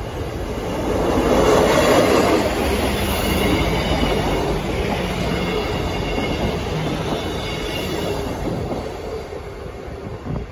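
Passenger train passing over the level crossing at close range, its wheels rumbling and clattering over the rails. It is loudest about two seconds in, then runs on steadily and eases off near the end as it draws away.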